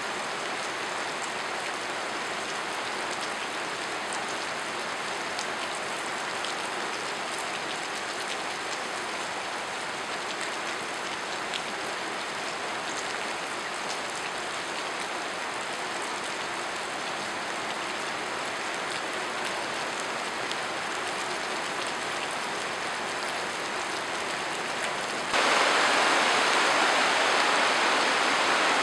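Steady rush of water, growing abruptly louder and brighter about 25 seconds in.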